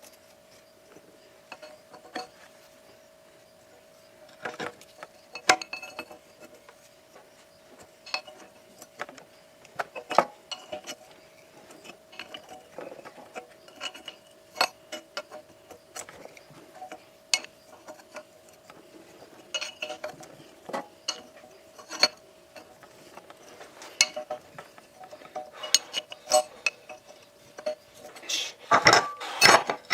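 Tools and small metal parts clinking and knocking while the grinder is being taken apart, as scattered taps with a quick cluster of clatter near the end, over a faint steady hum.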